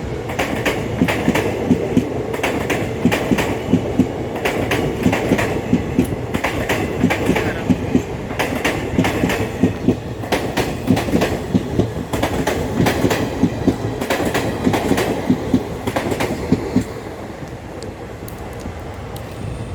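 Coaches of an express passenger train passing at speed, their wheels clattering in a rhythmic clickety-clack. The clatter stops about three seconds before the end, leaving a fading rumble as the train moves away.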